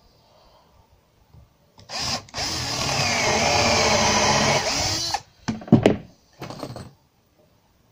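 Cordless drill driver driving a screw into softwood stair timber: a brief blip, then about three seconds of continuous running with the motor pitch wavering under load, then two short bursts.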